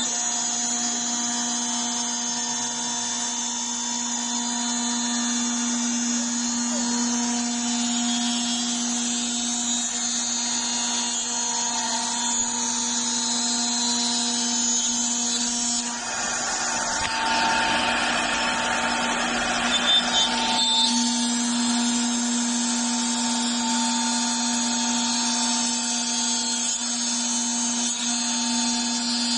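9015 wood CNC router's spindle running at speed with a steady whine as its bit cuts a shape into a wooden board. A little past halfway the cutting noise turns louder and rougher for about five seconds, then settles back to the steady whine.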